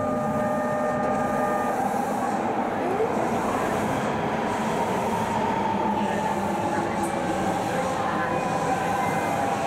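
Keihan 800 series train running through a subway tunnel: a steady rumble of wheels and motors with a faint wavering whine. A steady electronic beep tone carries over into the first couple of seconds and then stops.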